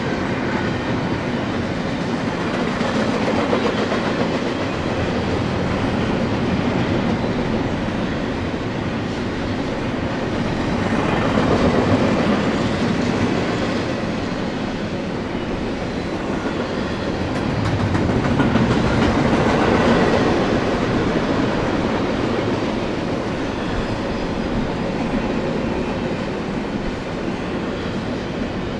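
Freight train rolling past, a continuous rumble of wheels and cars on the rails that grows louder and softer a few times.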